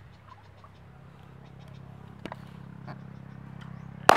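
A firecracker going off in the pond near the end: one sharp, loud bang followed by a brief noisy spray. Before it there is only faint, steady outdoor background.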